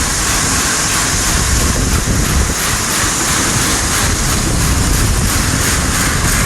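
Large farm tractor running steadily: a dense low rumble with an even rushing hiss over it.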